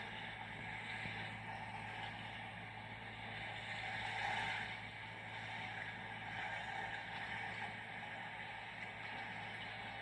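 A passing ship's steady low engine hum under a continuous wash of water and wind noise, swelling slightly about four seconds in.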